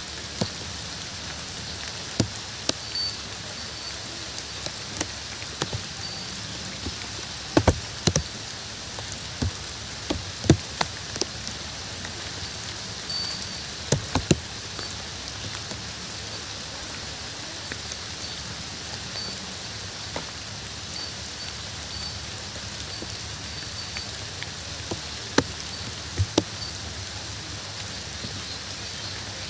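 Steady rain falling, an even hiss, with single heavier drops landing close by now and then as short, sharp plops.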